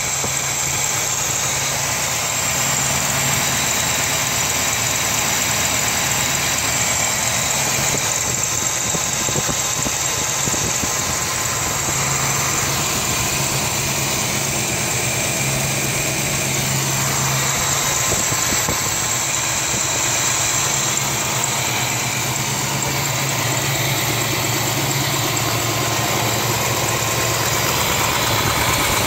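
454 big-block V8 idling steadily on a freshly rebuilt Edelbrock Quadrajet four-barrel carburetor.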